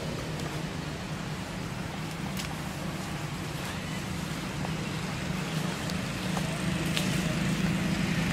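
Steady low engine-like hum and rumble, like road traffic, growing a little louder near the end, with a few faint clicks.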